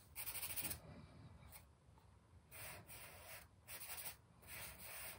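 Compressed charcoal stick scratching across newsprint in several short, faint shading strokes with brief pauses between them.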